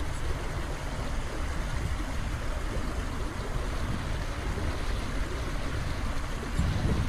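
Small mountain-stream waterfall pouring into a rock pool: steady rushing and splashing water, with a low rumble underneath that swells near the end.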